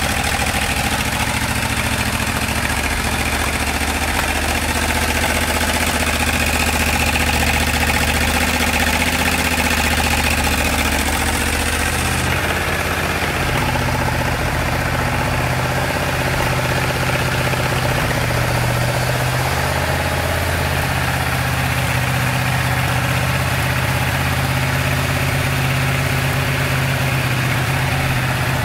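1996 Yamaha Royal Star Classic XVZ13's 1300 cc V4 engine idling steadily.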